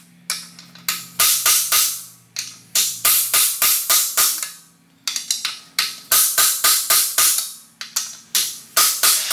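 Hammer blows on a steel drift, driving a solid aluminium subframe bushing into a Nissan 240SX subframe: quick runs of sharp metal-on-metal strikes, each ringing briefly.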